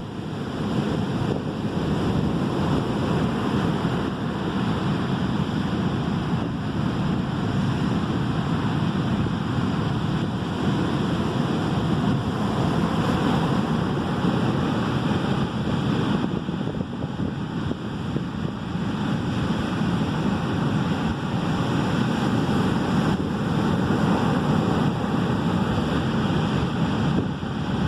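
Sea surf washing in steadily, mixed with wind buffeting the microphone.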